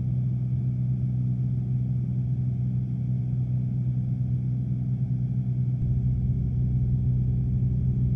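Light aircraft's piston engine and propeller droning steadily, heard inside the cabin. The low rumble gets heavier about six seconds in.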